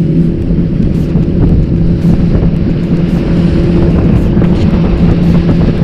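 Motorboat engine running steadily with the boat under way, with wind buffeting the microphone.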